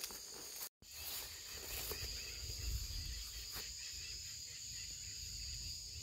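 Steady high-pitched drone of insects chirring, with a low rumble underneath from about a second in. The sound cuts out completely for a moment just before one second.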